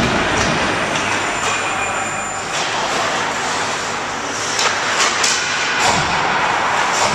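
Echoing ice-rink noise of hockey play: skate blades scraping and carving the ice, with a few sharp clacks of sticks and puck between about four and a half and six seconds in.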